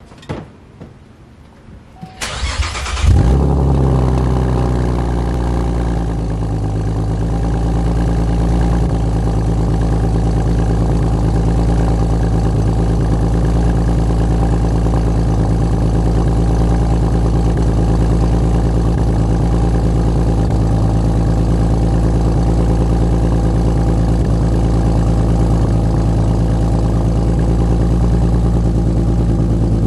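2010 Chevrolet Camaro's 3.6-litre V6, fitted with long-tube headers, high-flow cats and an aftermarket axle-back exhaust, cranks briefly about two seconds in, catches with a sharp flare, then settles into a steady idle.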